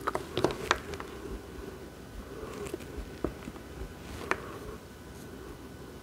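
Light clicks and taps of seed beads and a metal bracelet end bar being handled by hand: a few in quick succession at the start, then two single clicks a couple of seconds apart.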